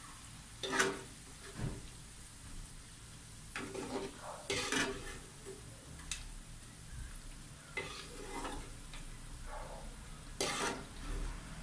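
A metal spatula and a wire-mesh strainer scraping and clinking against a steel wok as fried banana chips are scooped out of the oil, a string of separate scrapes with the loudest about a second in. A faint sizzle of the hot oil runs underneath.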